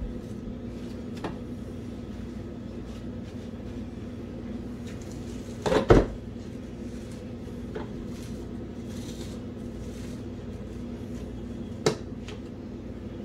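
A few knocks against a cooking pot as gloved hands work sticky marshmallow-and-cereal Rice Krispie mixture out of it. The loudest is a quick double knock about halfway through. A steady low hum runs underneath.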